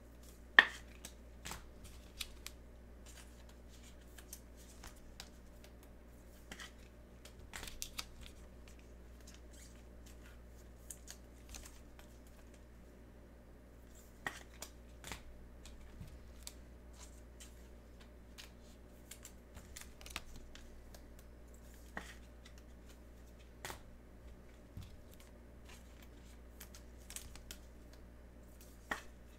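Trading cards being handled and slid into rigid plastic toploaders: scattered light clicks and scrapes at irregular intervals, with one sharper click about half a second in.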